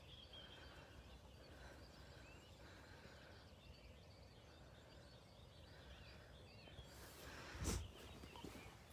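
Near silence: faint outdoor ambience with distant birds chirping softly. A brief low rumble on the microphone about three-quarters of the way through.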